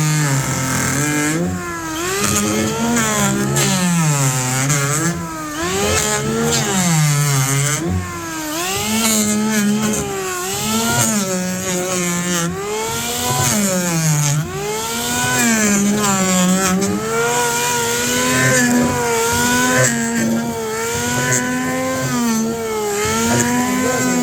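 Electric hand planer motor running steadily, its pitch repeatedly dipping and climbing back as it is loaded and unloaded by the cutting passes.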